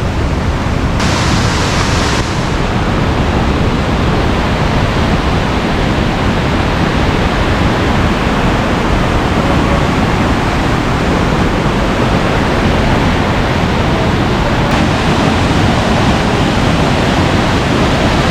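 Steady rushing of falling water at a waterfall, an even noise with no breaks. A brief brighter hiss rises over it about a second in.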